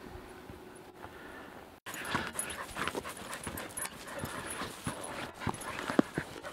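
Quiet steady background at first, then from about two seconds in close, busy noise of border collies on leads: panting, footsteps and rustling on grass, in irregular short thumps.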